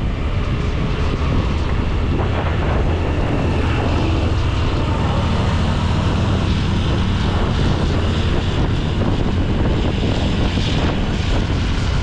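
Honda Dio scooter running steadily while riding, its engine hum mixed with wind buffeting the microphone.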